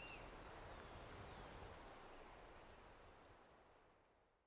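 Faint outdoor nature ambience: a steady hiss with a few scattered bird chirps, fading out over the last couple of seconds.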